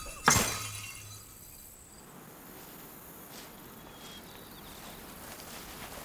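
A single sharp crash about a third of a second in that rings out briefly, followed by a faint steady hiss.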